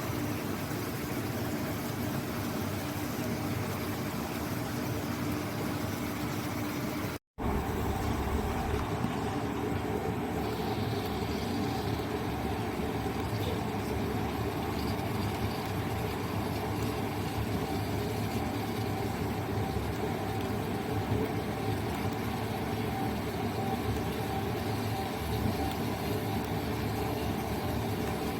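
Steady industrial running noise with a constant hum from DC electric arc furnace plant equipment, cut off for an instant about seven seconds in.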